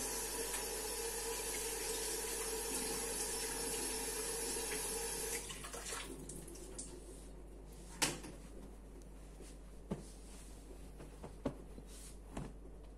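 Kitchen tap running into a steel sink with steady splashing, shut off about five seconds in. After that come a few separate knocks and clinks of kitchenware being handled.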